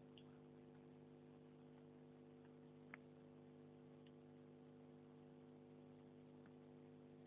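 Near silence: a steady electrical hum, with a few faint ticks, the clearest about three seconds in.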